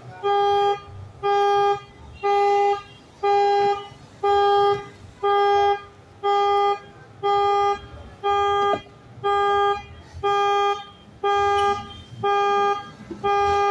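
Car alarm pulsing the vehicle's horn, one steady single-pitched honk about once a second, each about half a second long: the alarm of a vehicle being broken into.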